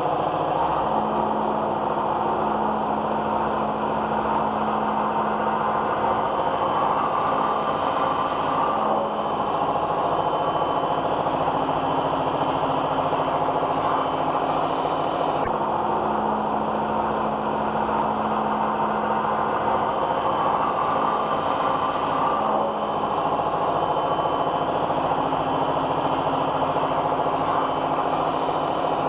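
4-axis CNC foam router running and carving foam: a continuous spindle whine over the cutting noise, with a steady hum that shifts pitch a few times as the machine moves.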